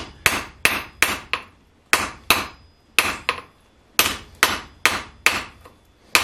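Hand hammer striking a glowing orange-hot steel bar on the face of an anvil: about fifteen sharp metallic blows in quick runs of two to four with short pauses between. The blows are evening out a tapered forge weld at the end of a bundle of twisted bars.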